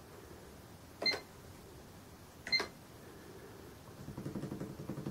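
Keys pressed twice on a Sam4S NR-510R cash register keyboard, about a second and a half apart, each press giving a click and a short high beep.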